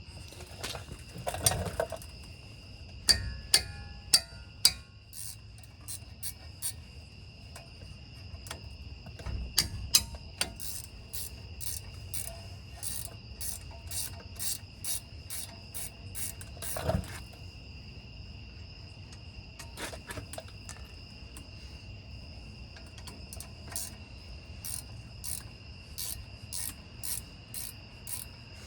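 Crickets chirping steadily, with scattered metal clicks and clanks of hand tools and parts during front brake work, including quick runs of clicks and one louder knock about two thirds of the way through.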